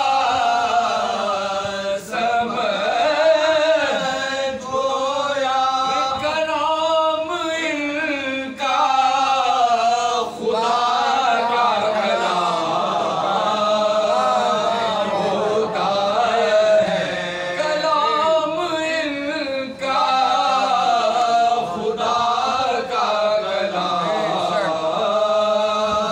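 Soz khwani: a group of men chanting a salam, an Urdu devotional elegy, together without instruments, the lead voice amplified through a microphone and the others joining in.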